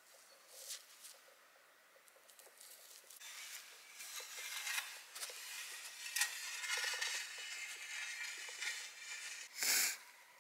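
Irregular scraping and crunching in forest soil and leaf litter, louder from about three seconds in. A short loud rustle comes just before the end.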